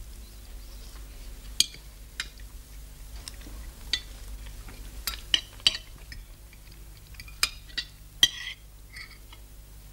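Metal forks clinking and scraping on plates while eating, in scattered sharp clinks, several close together about five seconds in and two more near the end.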